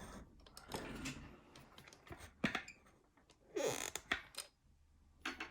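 Hands handling the small parts of a disassembled lever lock: scattered light clicks and knocks, with a short creak a little before four seconds in.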